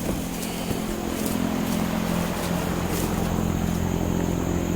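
An engine running at a steady speed, an even low hum, with a thin high whine coming in about three seconds in.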